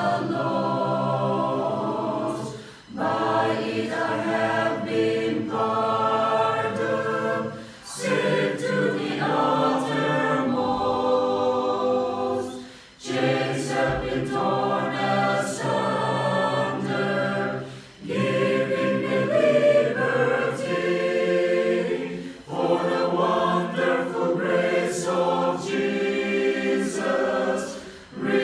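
A mixed choir of young men and women singing a hymn a cappella, in phrases of about four to five seconds with short breaks for breath between them.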